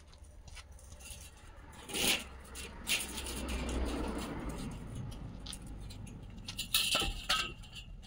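Light metallic clicks and clinks from a long, thin steel sawmill band blade being handled and flexed, with a cluster of them near the end. A low rumble sits underneath, swelling in the middle.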